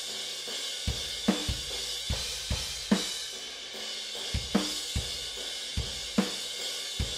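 Raw, unmixed studio drum kit tracks played back together: kick drum strikes, a snare hit about every second and a half, and a steady wash of cymbals and hi-hat. The balance is a little too roomy, with the room mics up and the direct close mics a little quiet.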